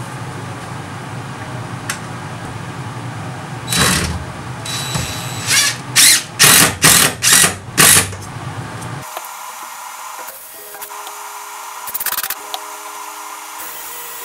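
Cordless drill/driver driving screws in a series of short bursts, about five quick pulses in the middle, over a steady background hum.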